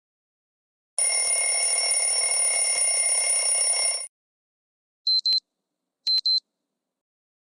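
Preloaded Xiaomi Redmi Note 4 alarm-style tones: a harsh buzzing alarm sound for about three seconds, then two short, high double beeps about a second apart.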